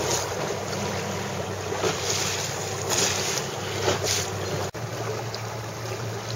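Wind buffeting the microphone over open water, with gusts swelling several times and a low steady hum underneath. The sound breaks off for an instant a little past halfway, then the wind noise goes on.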